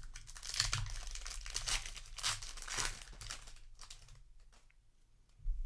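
Foil wrapper of a Magic: The Gathering set booster pack being torn open and crinkled by hand, a dense crackling that thins out and fades over the last second or two.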